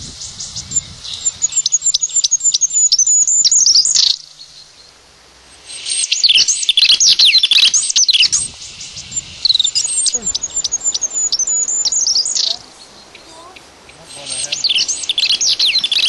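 Goldcrest song played back through a small speaker from an MP3 player as a lure for the mist net: phrases of very high, thin, quickly repeated notes, each a few seconds long, coming again after short gaps.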